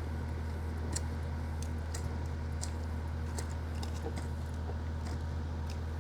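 An engine running steadily at idle, with scattered light clicks and taps over it.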